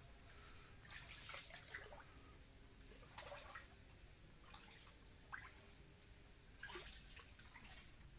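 Faint water drips and small splashes, a few at irregular intervals over an otherwise near-silent background.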